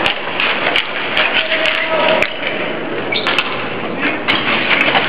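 Ball hockey play: frequent sharp clacks of sticks and ball striking, over a steady din of voices, with a brief shout about two seconds in.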